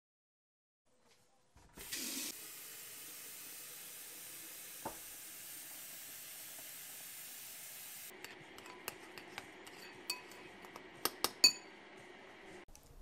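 Water running from a kitchen tap into an electric kettle, a steady rush that starts suddenly about a second and a half in and stops about eight seconds in. After that come a run of clinks and clicks, kitchenware knocked together, such as a metal spoon against a ceramic bowl.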